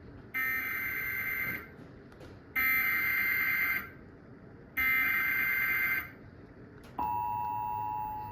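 Emergency Alert System SAME header: three identical bursts of data tones, each a little over a second long and about a second apart. About seven seconds in, the steady two-tone EAS attention signal starts.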